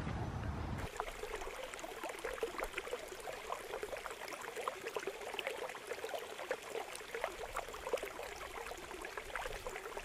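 Flowing stream, a steady rush and trickle of water with many small splashes and gurgles. A low rumble underneath stops about a second in.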